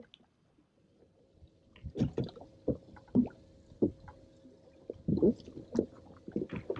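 Irregular knocks, thumps and rustles as a smallmouth bass is worked out of a landing net and unhooked on a bass boat's deck, over a faint steady hum.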